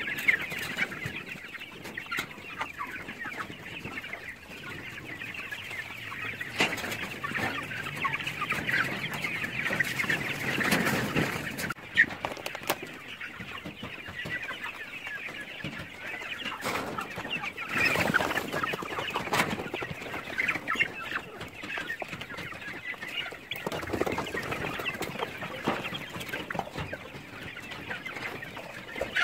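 A large flock of chickens clucking and chattering continuously, with a sharp click about twelve seconds in.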